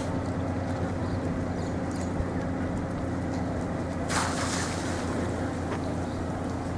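Steady low engine hum throughout. About four seconds in there is a brief rushing splash as a brown pelican drops into the water.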